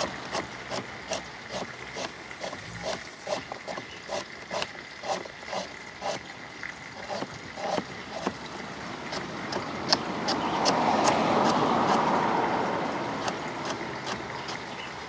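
Kitchen knife chopping a carrot on a plastic cutting board, sharp regular cuts about two a second with a brief pause just past the middle. A broad wash of background noise swells and fades about two-thirds of the way through.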